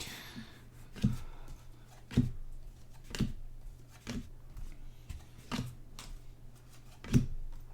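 Trading cards being handled one at a time from a freshly opened pack, with a short sharp flick or tap roughly every second as each card is moved.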